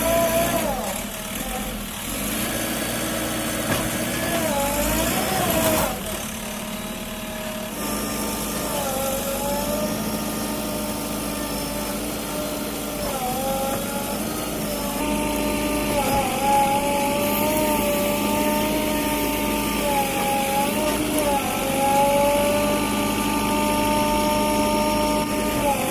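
Backhoe loader's diesel engine and hydraulics working, the engine note and a whine rising and falling in pitch with the load; the sound changes abruptly about six seconds in and again about eight seconds in.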